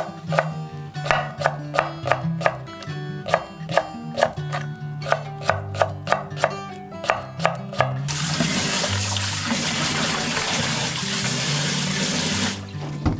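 A chef's knife slicing pickled cucumbers on a wooden cutting board: a steady run of quick strokes, about three a second, each a knock of the blade on the board. About eight seconds in the chopping stops and tap water runs into a stainless steel bowl as hands rinse the sliced cucumbers.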